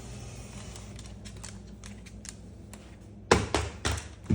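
A toy tumbling down a staircase: four loud thumps in quick succession near the end, after faint light clicks.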